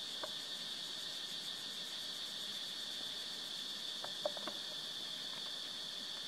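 Steady chorus of insects, an even high-pitched drone, with a few short clicks about four seconds in.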